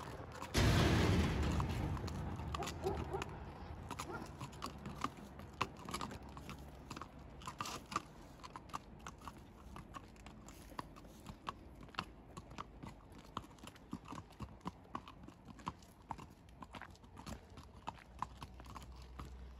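A horse's hooves clopping at a walk on a concrete path: sharp, uneven clops about two a second. About half a second in, a loud rush of noise fades away over a second or so.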